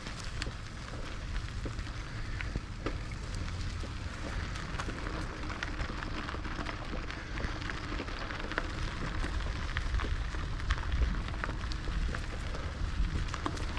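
Tyres of a rigid Raleigh Redux bicycle rolling over a gravel and pine-straw trail: a steady crunching crackle with many small clicks of stones, over a low rumble of wind on the microphone.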